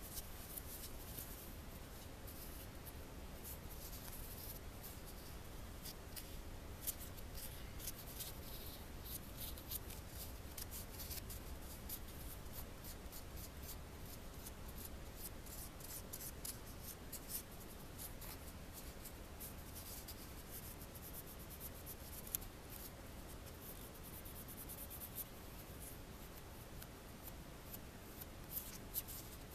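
A small piece of copper jewelry being buffed by hand with a polishing pad, taking the liver-of-sulfur darkening off for an antiqued look. Quick, irregular scratchy rubbing strokes, with a few sharp clicks.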